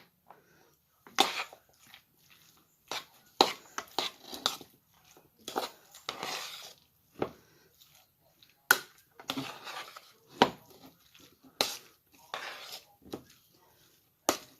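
A spoon mixing mayonnaise into diced potato salad in a bowl, with irregular clinks and scrapes against the bowl.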